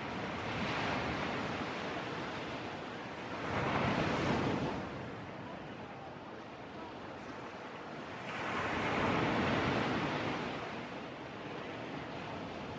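Sea surf breaking and washing in, a steady rush that swells and falls back with each wave, loudest about four seconds in and again from about eight to ten seconds in.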